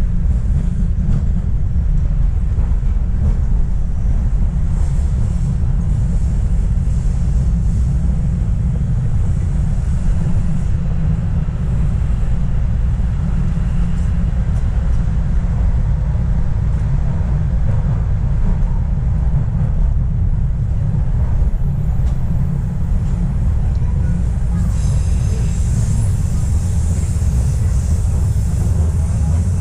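Subway train running through a tunnel, heard from inside the car: a steady, heavy low rumble, with a higher hiss joining about 25 seconds in.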